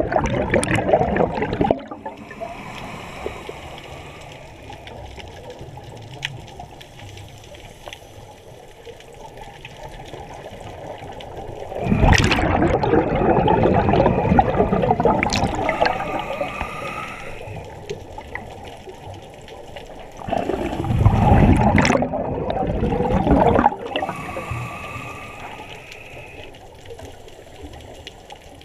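A scuba diver breathing through a regulator: exhaled bubbles rush past in three long, loud bursts, roughly ten seconds apart, with the quieter hiss of inhaling through the regulator between them.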